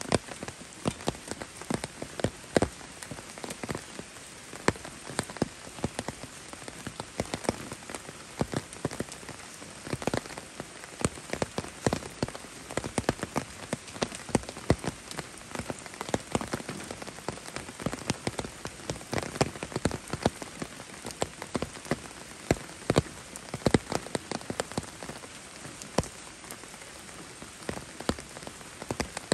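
Steady rain falling, an even hiss with many sharp drop hits close by, several a second and irregular.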